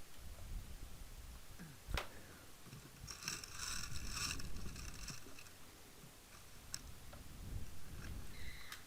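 Faint outdoor game sound: low rumble and handling rustle, a single sharp click about two seconds in, then a distant high-pitched scream from about three to five seconds in, from a player hit by an airsoft BB.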